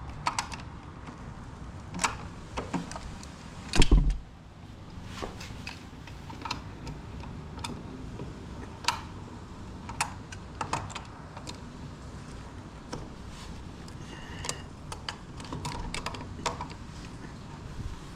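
Hand work on a boat's old livewell pump fittings while removing it: scattered small clicks and knocks, with one louder knock about four seconds in.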